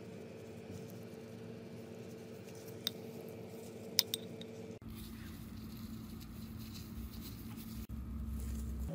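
Soft wet brushing of a silicone pastry brush spreading egg wash over rolled dough, over a steady low hum, with a few sharp clicks about three and four seconds in. About five seconds in the background changes abruptly to a lower hum with rumble.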